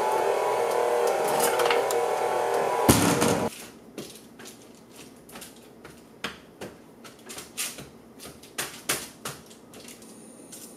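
KitchenAid stand mixer running steadily as it beats dough, with a brief louder clatter just before it cuts off about three and a half seconds in. After that, light scattered taps and rustles of hands patting dough out on parchment paper and handling a metal doughnut cutter.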